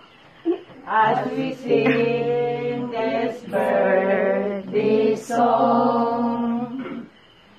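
Voices chanting in long, held notes, one sung phrase after another, stopping about half a second before the end.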